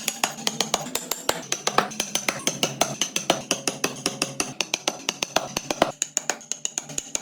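A rapid, even run of sharp clicks or taps, about six to eight a second.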